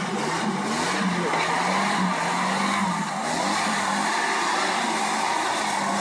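Off-road 4x4's engine running hard under load as the vehicle claws its way up a steep muddy bank out of a creek, a steady wavering drone with noise from the churning wheels.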